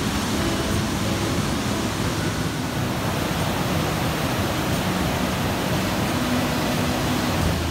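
Katsura River in flood after heavy rain, its swollen, muddy water rushing and churning over rapids in a steady roar.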